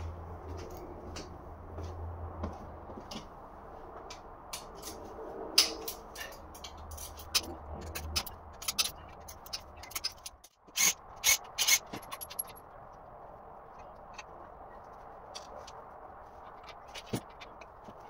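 Ratchet wrench and socket working the connecting-rod cap bolts on a bare engine block: scattered metal clicks and clinks, with a quick run of louder clicks a little past the middle.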